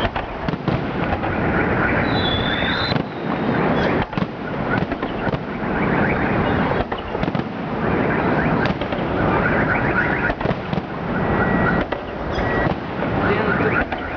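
A fireworks display: shells bursting in rapid, repeated bangs over a dense, continuous crackle, with a brief whistle now and then.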